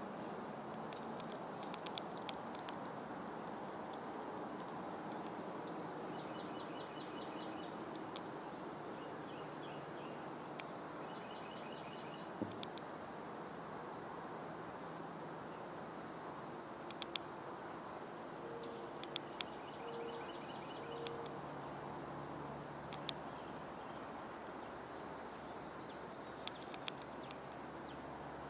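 Steady high-pitched chorus of crickets and other insects, with a higher insect buzz swelling louder twice for a second or two. A few sharp clicks stand out here and there.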